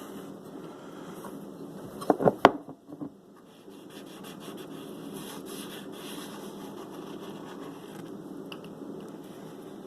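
Hands pressing and rubbing a freshly glued foam surround down onto a speaker's edge: soft scraping and rubbing, with a few sharp knocks about two seconds in.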